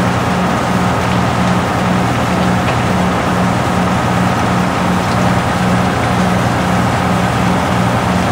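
Backhoe loader's diesel engine running steadily, without revving.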